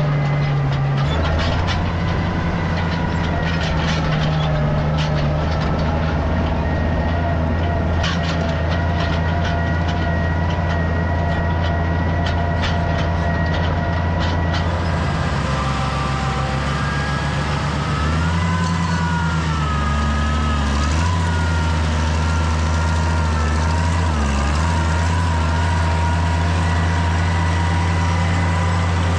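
Tractor engine running steadily under load, with light rattling clicks in the first several seconds and a few small dips and rises in engine pitch in the second half.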